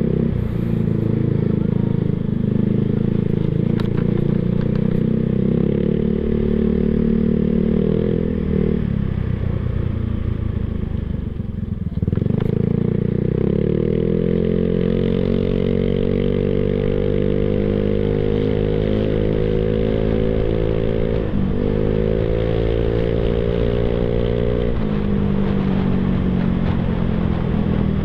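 Yamaha Mio Sporty scooter's single-cylinder engine running through an Apido aftermarket exhaust pipe, its pitch rising and falling with the throttle. It eases off about a third of the way in, picks up sharply and climbs slowly, dips briefly, then drops back near the end.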